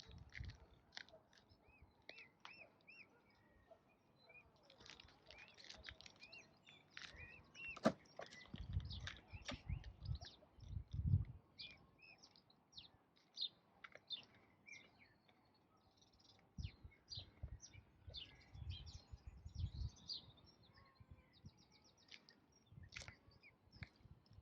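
Small birds chirping, with many short high calls and repeated arched call notes throughout. Low rumbling bursts come twice, in the middle and again later.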